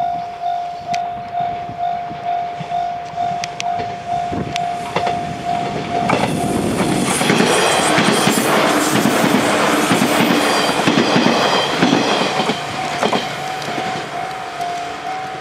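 A level crossing warning bell dings steadily, about two strikes a second. From about six seconds in, a 185 series electric train passes close by, its wheels clattering on the rails and drowning the bell, which is heard again as the train moves away near the end.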